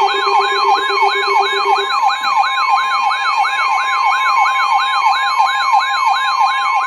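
Electronic emergency-alert siren: a tone sweeping down in pitch about three times a second, layered over steady high alert tones, with a lower steady tone that drops out about two seconds in.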